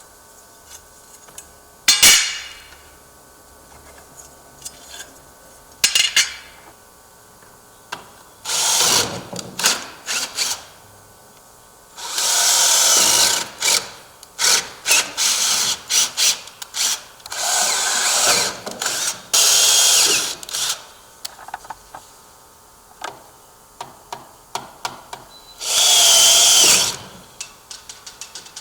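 Handheld power drill drilling holes and driving wood screws through an aluminium door threshold into the subfloor, in runs of one to two seconds with quick short pulses of the trigger between them. A couple of sharp knocks come in the first few seconds.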